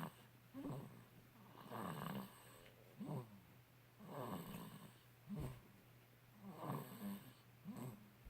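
A two-month-old snoring in its sleep: short, faint snoring breaths, about one a second.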